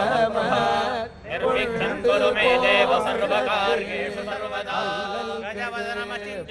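Hindu priests chanting Sanskrit Vedic mantras for a Ganapati homa, several voices together in a steady recitation, with a brief break about a second in.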